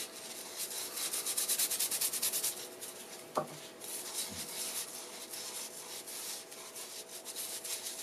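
Lacquer-soaked rag rubbing black raw urushi into a wooden bowl in quick repeated strokes, easing off for a moment about three seconds in: the bowl's first coat of wiped-lacquer (fuki-urushi) finish being worked into the wood.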